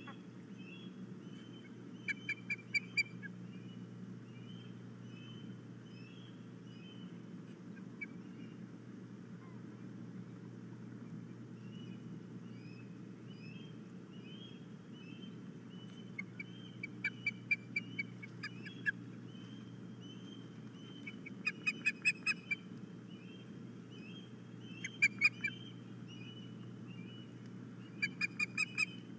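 Osprey calling: five bursts of quick, sharp whistled chirps, one about two seconds in and the rest in the second half, with softer repeated chirps in between.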